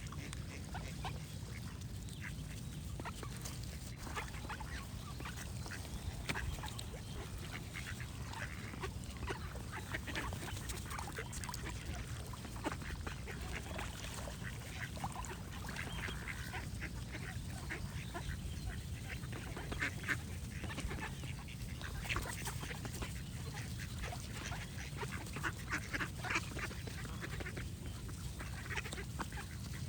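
Ducks quacking again and again in short calls, more often in the second half, with other birds singing among them, over a steady low rumble.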